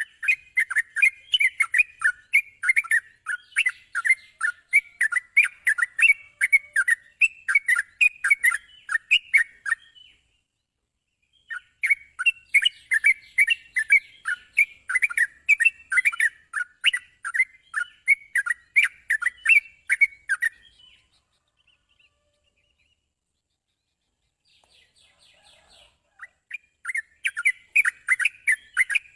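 Yellow-vented bulbul (trucukan) singing: long runs of rapid, repeated chirping notes, several a second, in three spells with a brief break near the middle and a few seconds of quiet in the last third.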